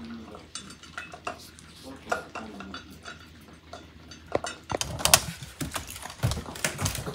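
Yorkshire terrier eating dry kibble from a bowl: many small clicks and crunches of kibble against the bowl. About halfway through come louder knocks and thumps as the dog climbs the stairs.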